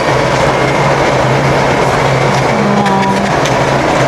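Loud, steady background noise: a hiss across the whole range with a low hum beneath it, the heavy background noise of the store recording. A short steady tone sounds briefly about three seconds in.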